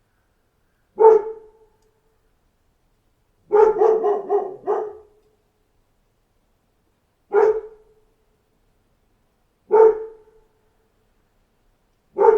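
A dog barking in separate single barks with silence between them. About three seconds in there is a quick run of four or five barks.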